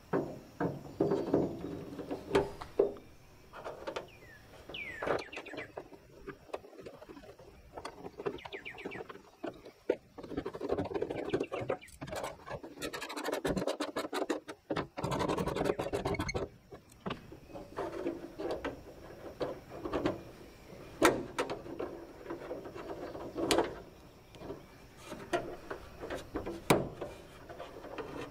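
Hand work on a steel pickup tailgate: scattered clicks, knocks and scraping as a new tailgate handle and its rod clips are fitted. Near the middle comes a run of rapid ratchet clicking as a ratcheting wrench turns the handle's fastener.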